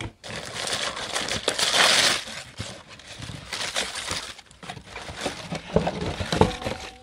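Tissue paper rustling and crinkling as it is pulled back in a cardboard shoebox and sandals are lifted out, loudest about two seconds in. A few soft knocks come near the end.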